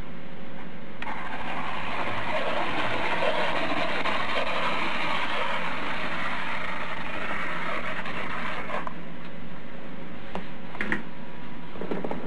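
Hand-cranked plastic apple peeler turning, its gears whirring and its blade scraping the peel off the apple for about eight seconds, then a few light clicks and knocks.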